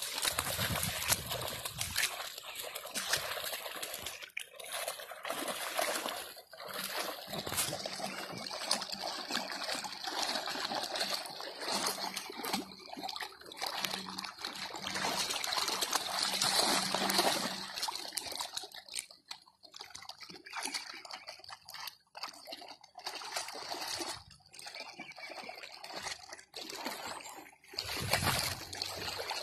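Hound puppies splashing and sloshing through a shallow muddy puddle, water splattering as they run, wade and tussle. The splashing is busy and continuous for the first half, then comes in looser, more scattered splashes.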